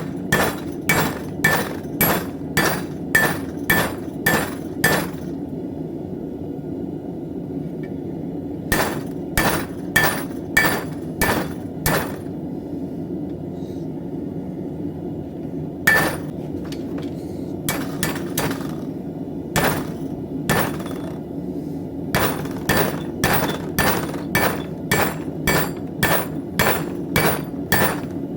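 Hand hammer striking steel on an anvil in forging, about three blows a second with a ringing note, in runs broken by pauses of a few seconds. A steady rushing noise runs underneath.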